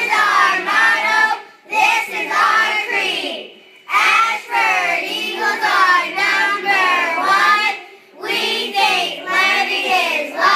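A group of young children singing together in unison, phrase after phrase, with brief breaks between lines.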